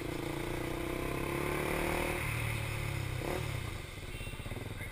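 KTM Duke 390's single-cylinder engine running under throttle through a tight track section, its note holding steady for about two seconds, then shifting, and easing off briefly near the end.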